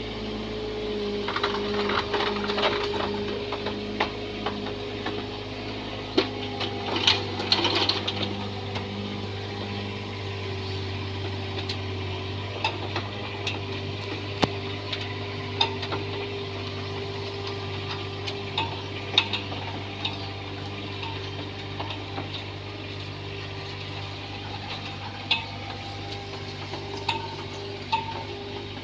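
Bobcat 322 mini excavator running steadily, with an engine and hydraulic hum and scattered sharp metallic clanks, most of them about seven to eight seconds in and around nineteen seconds.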